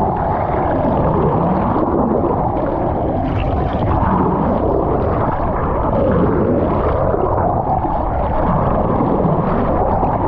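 Underwater sound among a pod of Atlantic white-sided dolphins: repeated rising and falling whistle-like glides over a dense, steady rush of water noise.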